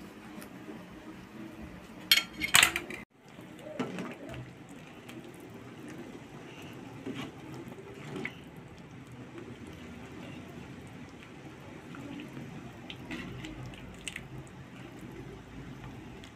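Metal utensil clinking against a ceramic bowl, a quick loud cluster of clinks about two seconds in. After that a ladle stirs and scrapes in a wok of thin soup broth, with light scattered clinks and faint liquid sounds.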